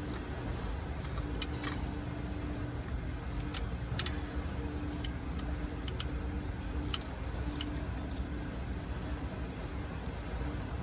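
Scattered metallic clicks and taps of a ratchet wrench turning a pusher bolt to unseat the rear freeze plug of a Cummins engine block, over a steady low hum.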